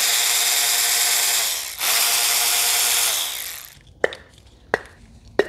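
Powered ratchet running in two bursts, the second starting about two seconds in after a brief pause, spinning fasteners out of the engine top. It is followed by a few sharp clicks of tools and parts being handled.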